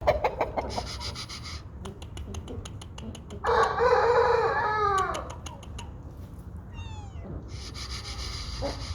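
Aseel rooster crowing once, a single long, loud call starting about three and a half seconds in and falling in pitch as it ends, with sharp clicks in the first second or so.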